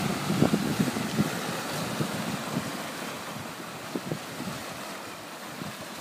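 Small waves of sea surf breaking and washing over a pebble shore and around rocks, with a few short splashes.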